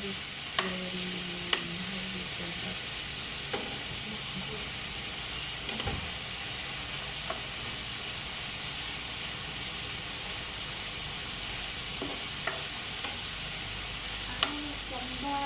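Beef cooking in a pan, a steady sizzling hiss, with now and then a sharp clink of a utensil against the pan as it is stirred.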